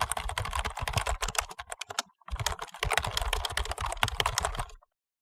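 Computer keyboard being typed on quickly, a fast run of key clicks that pauses briefly about two seconds in, resumes, and stops near the end.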